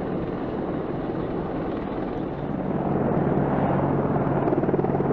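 AH-64 Apache attack helicopters flying in formation, with a rapid rotor beat over a steady engine hum. It grows louder about halfway through.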